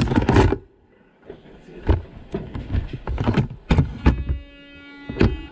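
Handling knocks and clatter of a camera and items on a wooden table beside plastic security bins: a run of sharp knocks. About four seconds in, a buzzing tone sounds for about a second.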